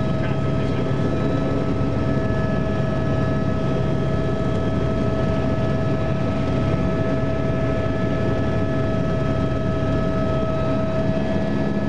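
Helicopter in flight heard from inside the cabin: a steady high whine over a constant rumble of engine and rotor noise.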